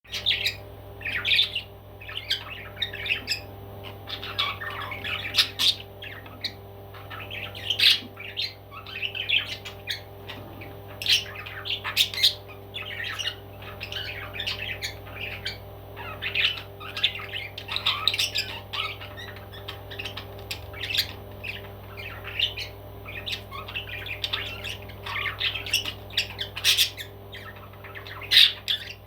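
Parrot squawking in many short, harsh calls, one after another, over a steady low hum.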